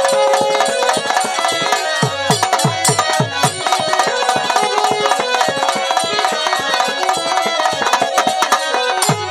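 Instrumental passage of Bhojpuri folk music: hand drums play a fast, even rhythm over held melody notes, with a few deep drum strokes about two to three seconds in.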